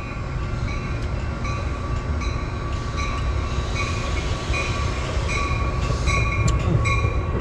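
Train running past a station platform: a steady low rumble with a high ringing tone that pulses about every three-quarters of a second.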